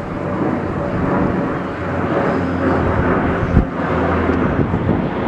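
A fixed-wing firefighting airtanker flying low overhead, its engines making a steady drone and rumble, with a short thump about three and a half seconds in.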